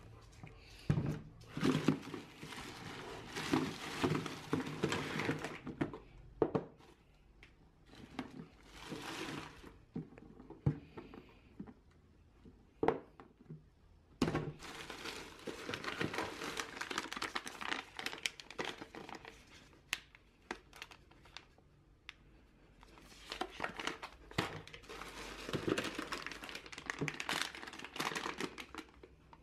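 Plastic shopping bag and packaging crinkling in several spells as items are handled and unpacked, with a few sharp knocks in between.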